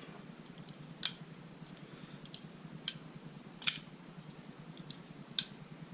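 Eafengrow EF223 flipper folding knife being flicked open and shut one-handed: four sharp clicks of the blade swinging out and locking and being folded closed, with a few fainter ticks between.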